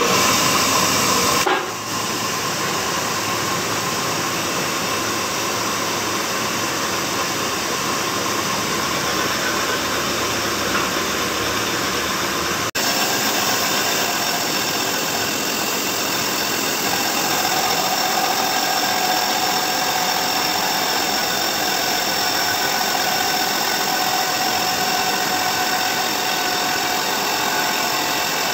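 A flywheel face being resurfaced on a lathe, with a belt-driven grinding wheel running against the spinning flywheel. It makes a steady grinding hiss over the hum and whine of the motors. The sound is louder for the first second or so and changes abruptly about halfway through.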